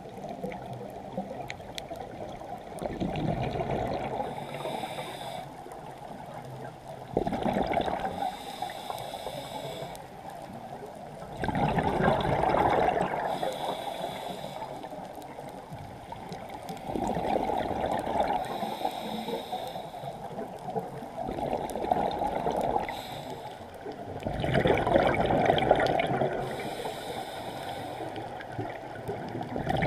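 Scuba diver breathing through a regulator, heard underwater: a bubbling, gurgling rush of exhaled air about every four to five seconds, with quieter stretches between breaths.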